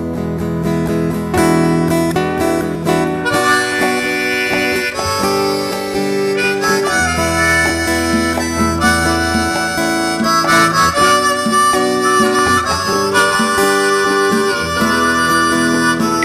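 Instrumental break in an acoustic song: a harmonica plays a melody of held notes over acoustic guitar accompaniment.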